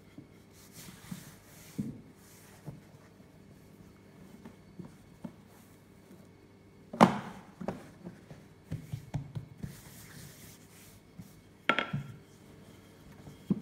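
Wooden rolling pin rolling out a sheet of dough on a silicone baking mat: soft rubbing with scattered light knocks, a sharp knock about halfway through and another near the end.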